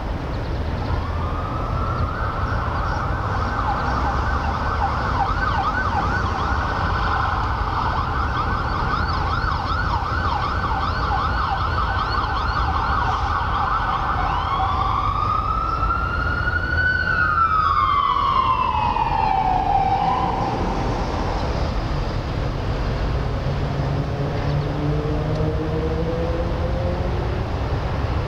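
Emergency-vehicle siren over steady low traffic noise: a rapid warbling yelp for about twelve seconds, then one slow wail that rises and falls. Near the end a vehicle engine rises in pitch as it speeds up.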